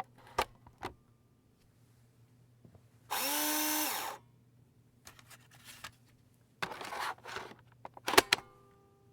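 Disk drive taking a disk: a couple of clicks, then the drive motor spins up for about a second with a rising whine about three seconds in. Rattling noise follows, then sharp clacks near the end.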